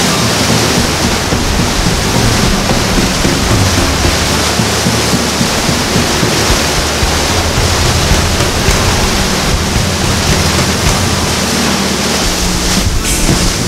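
Steady loud rush of sea water and air past a moving boat, with the low steady drone of its engine underneath.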